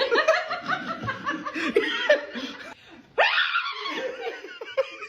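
People laughing hard in quick, repeated bursts, breaking off briefly a little under three seconds in, then laughing again.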